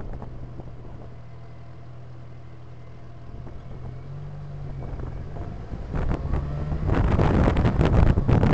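Car engine humming low and steady at slow speed, its pitch stepping up about four seconds in. From about six seconds, wind buffets the microphone in loud rough gusts as the car picks up speed.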